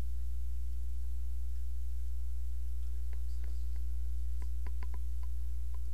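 Steady low electrical hum with a few faint steady tones above it. From about halfway through come a scatter of faint clicks and rustles as a jacket is handled and put on.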